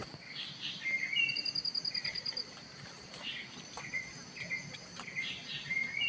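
Tropical rainforest insects and birds: a steady high insect drone, one rapid trill of short evenly spaced pulses starting a little over a second in and lasting about a second, and scattered short bird chirps.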